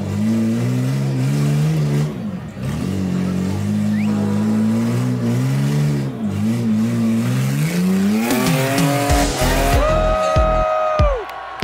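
Rock buggy engine revving up and down in repeated bursts as it crawls up a rock ledge. Near the end, electronic music with a heavy beat comes in.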